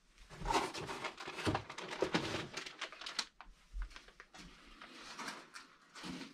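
Handling noise at a fireplace: a run of clicks, knocks and rustles, busiest in the first three seconds or so, as the fireplace's glass doors are opened and a paper-wrapped firelog is picked up.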